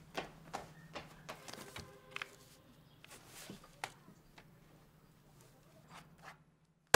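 Scattered light knocks and rustles of people moving about a room, several a second in the first two seconds and fewer later, over a faint steady low hum.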